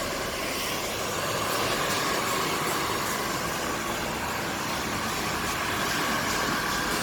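A barber's electric hair tool running steadily: an even rushing hiss with a constant whine.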